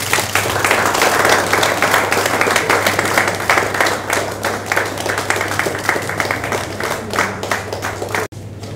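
A group of people clapping in applause, a dense steady patter of hand claps that cuts off abruptly near the end.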